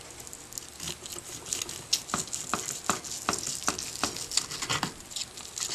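Knife sawing back and forth through a roasted turkey back's browned, crisp skin and meat. Each stroke gives a short crackle, about three a second.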